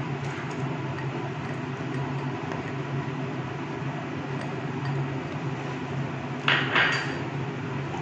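Sugar syrup with dates boiling steadily in a kadai as pieces of dried mango leather go in. Near the end, a spatula scrapes against the pan twice in quick succession.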